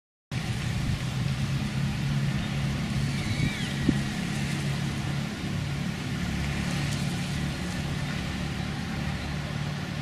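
Steady outdoor background noise with a low hum, starting abruptly about a third of a second in, with a brief faint high sweep about three seconds in.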